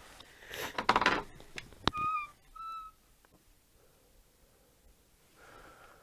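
Rustling against brush, a sharp knock, then two short squeaks, the first dipping slightly in pitch, typical of an old wooden door's hinges being moved.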